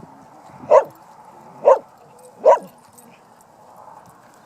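A dog barking three short times, about a second apart.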